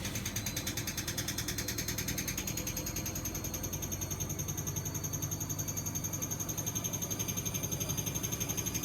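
Bosch WVH28360GB washing machine running with its drum turning, giving a rapid, regular pulsing hum with a ticking edge; the machine is shaking and making a funny noise, the sign of a fault in the drum's run.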